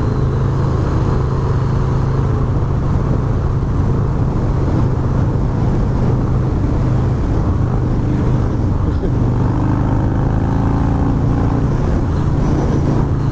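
Harley-Davidson Low Rider S V-twin engine pulling hard at highway speed, with wind rushing over the microphone. The engine note changes about nine seconds in.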